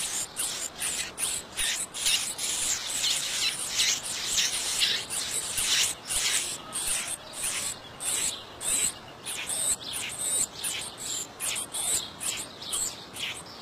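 Sayaca tanager nestlings begging for food: a rapid run of short, raspy, high-pitched calls, two or three a second, that goes on without a break.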